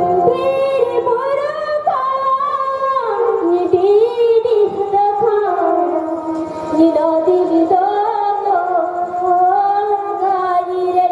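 A woman singing a slow melody with long held, gliding notes, with music behind her.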